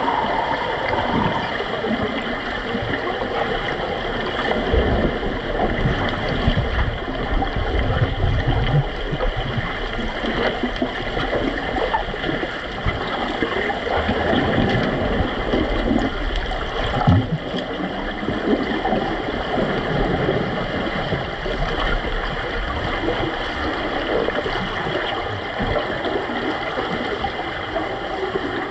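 Underwater pool noise heard through a submerged camera's housing: a steady, muffled rushing and gurgling of water churned by swimmers in fins, with a single dull knock about two-thirds of the way through.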